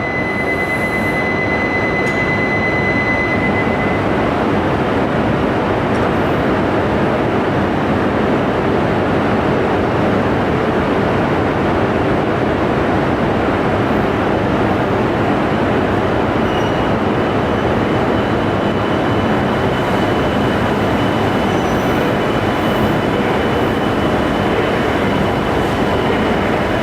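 Coupled Yamabiko and Tsubasa Shinkansen train pulling out of the platform, a loud steady rush of running and wheel noise echoing in the underground station. A thin high steady tone sounds over it for the first few seconds.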